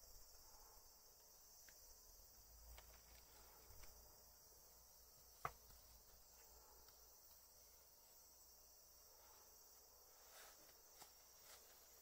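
Near silence: a faint steady high hiss, with a few soft clicks and one sharper click about halfway through.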